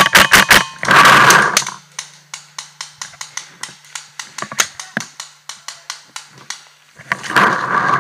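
Paintball markers firing: a quick string of shots at the start, then single shots a few per second, with denser, louder volleys about a second in and again near the end.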